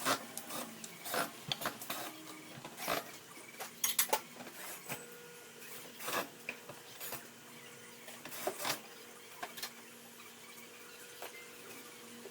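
Irregular clicks, knocks and rubbing from hands handling the TV's panels and tools, thinning out after about nine seconds, over a faint steady hum.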